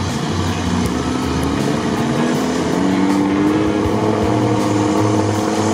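Lada Niva's engine revving hard and steady as the off-road 4x4 ploughs through a deep mud pit, its pitch climbing slowly, over the churn of tyres in mud and water.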